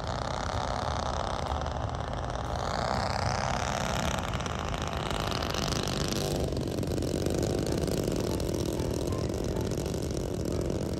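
Twin engines of a large radio-controlled model C-47 on landing approach. Their pitch rises as the plane nears, then drops suddenly about six seconds in as it passes low and touches down on grass.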